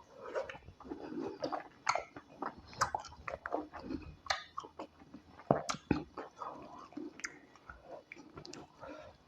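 Someone eating tilapia fish pepper soup with white starch: chewing and lip smacking, with many irregular sharp clicks and smacks.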